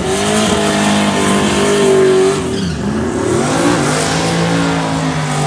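Drag car's engine held at high revs during a burnout, its tyres spinning against the track. The revs dip sharply and recover about halfway through, then hold steady.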